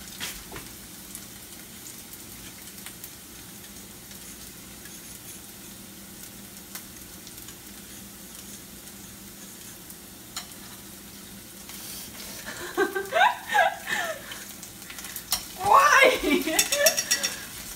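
Onion, ginger, garlic and green pepper sizzling as they fry in oil, a steady hiss. About twelve seconds in, louder uneven sounds come in twice over the sizzle and are the loudest thing heard.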